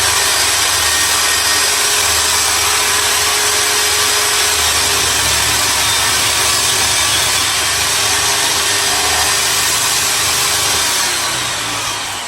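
Einhell 2025 table saw's 2000 W motor and 250 mm blade running at full speed through a cut in wood, loud and steady. Near the end it is switched off and spins down, the whine falling in pitch.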